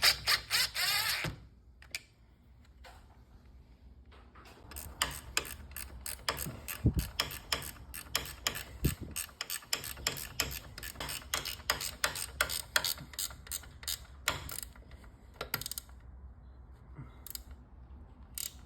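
Hand ratchet wrench clicking as it drives in the bolts that hold a garage door opener's new drive gear and sprocket. The clicks come in quick runs, several a second, for about ten seconds after a short harsher rasp at the start, and they thin out near the end.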